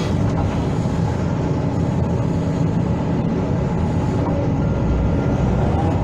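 Hydraulic excavator's diesel engine running steadily under working load, a dense low rumble.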